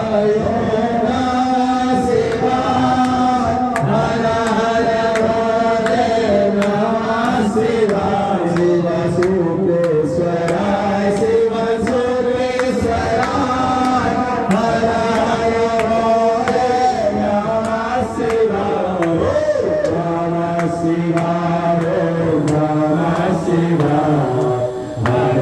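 Sanskrit Vedic mantras chanted to a sustained, sung melody without a break, with faint clicks above the voices.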